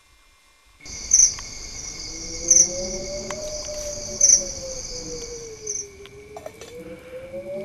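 Night insects (crickets) trilling in a dense high chorus that starts suddenly about a second in, swelling loudly four times about a second and a half apart and dropping out near the end. Under it a low wavering tone slowly rises and falls.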